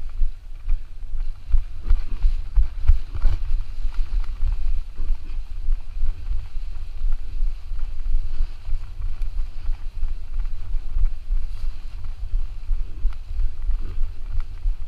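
Airflow buffeting a GoPro HERO4 Black's microphone in paragliding flight: a low, gusting rumble of wind noise.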